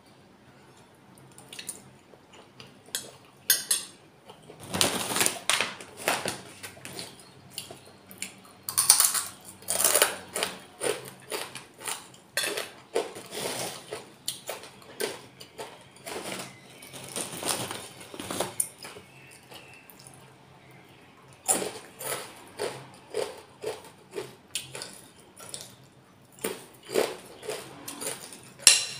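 A metal fork and spoon clinking and scraping against a plate in irregular bursts, with eating and chewing sounds in between.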